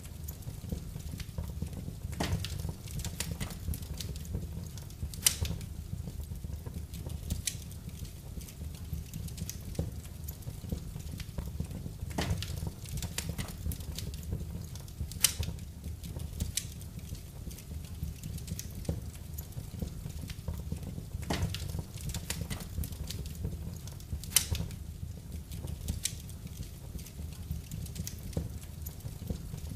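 Wood fire burning in a fireplace: a steady low rumble of flames with sharp crackles and pops at irregular intervals, a few of them much louder than the rest.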